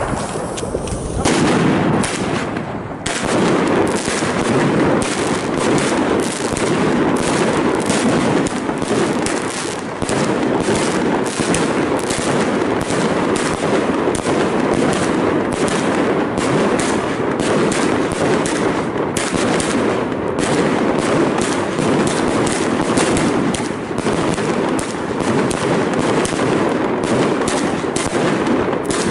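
Maxsem GWM6122 'Star Wars' 120-shot 30 mm firework cake firing in rapid succession. It starts about a second in, then runs as a continuous stream of shell launches and bursts, about four shots a second.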